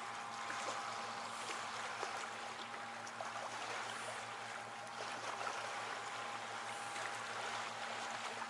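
Small waves lapping and trickling at the lakeshore, an even wash of water noise with scattered small ticks, under a faint steady hum.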